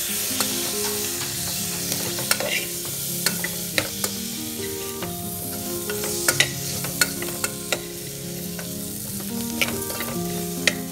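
Potato cubes and onion masala sizzling in hot oil in an aluminium pressure cooker pot, stirred with a steel ladle. The ladle clicks and scrapes sharply against the pot about a dozen times over the steady sizzle.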